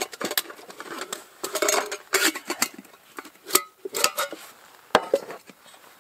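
Metal cookware and utensils clattering: a string of sharp knocks and clinks, a few of them ringing briefly.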